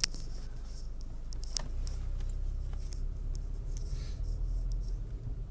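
Car cabin noise: a steady low rumble from the moving car, with scattered small clicks and rustles close to the microphone.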